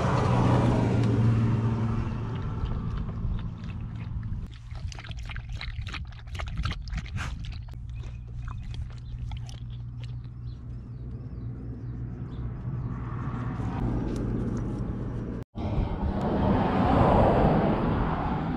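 A Doberman lapping and licking water, a run of quick wet clicks for several seconds in the middle, over a steady low hum.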